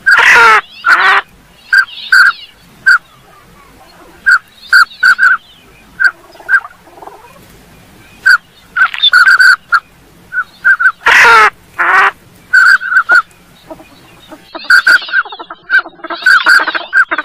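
Northern pintail calls: many short whistled notes, often in pairs, mixed with raspy wheezy calls, and a louder harsh call right at the start and again around eleven seconds.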